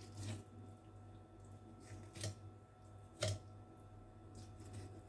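Knife cutting through raw liver on a plastic cutting board, faint, with four short knocks as the blade meets the board, the loudest about three seconds in.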